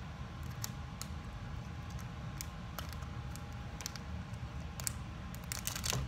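Scattered small clicks and crinkles of a toy's packaging being worked open by hand, about one every second, with a denser, louder run of crinkling near the end.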